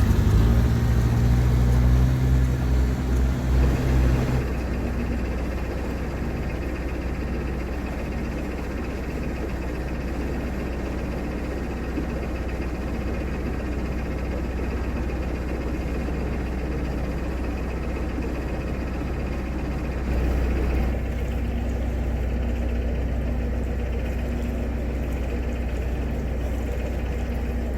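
Narrowboat's diesel engine running steadily while cruising, with a deeper, louder throb for the first few seconds.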